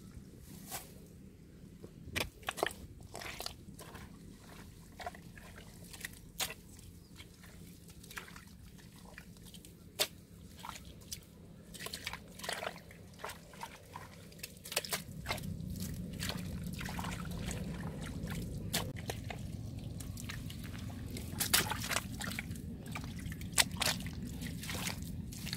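Wet mud and muddy water squelching and sloshing as a hole is dug out by hand, with many irregular sharp wet clicks and slaps. A low steady rumble comes in about halfway through.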